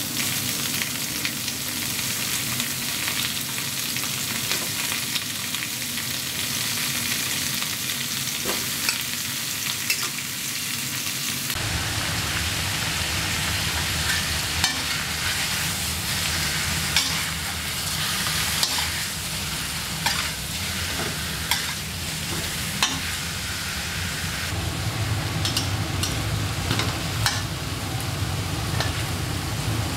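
Fish steaks sizzling as they fry in oil in a stainless steel wok, a steady hiss. A metal spatula clicks and scrapes against the wok now and then, more often in the second half.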